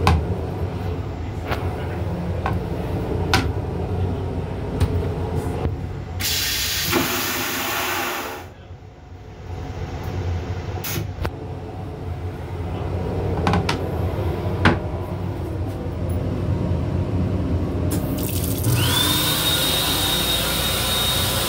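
M8 railcar toilet flushing: a loud rush lasting about two seconds, a third of the way in, over the steady rumble of the moving train. Near the end the washbasin faucet runs, with a steady high whine alongside the water.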